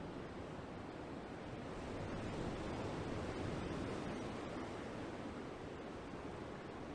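Ocean waves washing in, a steady rush that swells to a peak about two seconds in and eases off again.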